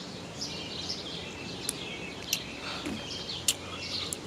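Small birds chirping and singing repeatedly in short falling notes, with a few sharp clicks, the loudest about three and a half seconds in.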